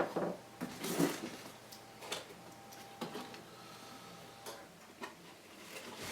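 Scattered light clicks and rustles of cardboard packaging and parts being handled during an unboxing, with a slightly louder rustle about a second in.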